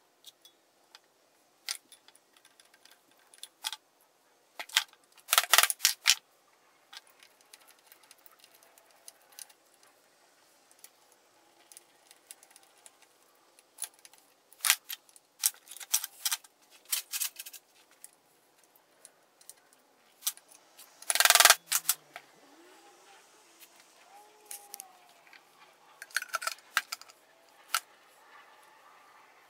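Metal engine parts and hand tools clinking and clattering as a small engine is handled and reassembled on a workbench, in scattered clicks with two louder rattles.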